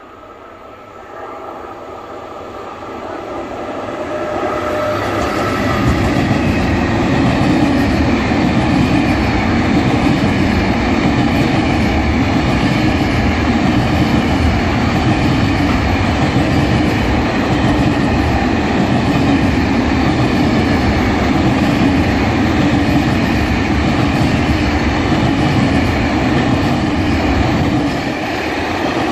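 Freight train hauled by an Sr1 electric locomotive approaching and passing close by, growing louder over the first few seconds. Its wagons' wheels then roll past on the rails in a steady, loud rumble.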